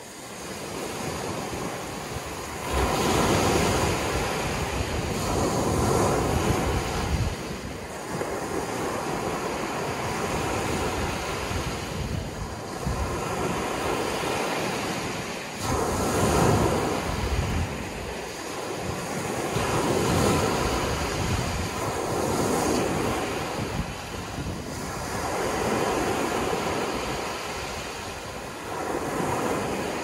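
Ocean surf: waves rushing in and washing back, the hiss swelling and easing every few seconds.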